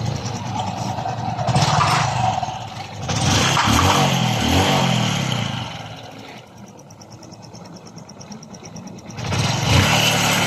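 Honda RS125 Fi's single-cylinder four-stroke engine running after a rebuild, revved in quick throttle blips about three to five seconds in and again near the end, settling to a quieter idle in between. It sounds like new again, with the piston slap gone.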